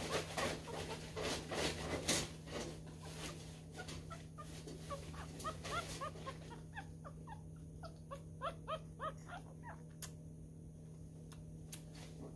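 Newborn miniature schnauzer puppy making short, high whimpering squeaks while being syringe-fed, with the squeaks clustered about halfway through. Handling rustle and clicks run through the first half, over a steady low hum.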